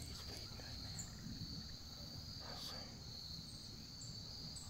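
Crickets trilling steadily in one unbroken high-pitched tone, over a low background rumble.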